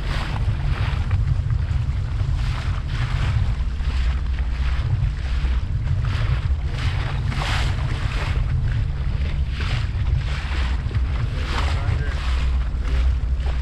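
A small boat running over open-ocean chop, with wind buffeting the microphone in a steady low rumble. Water hisses and splashes against the hull in surges every second or so.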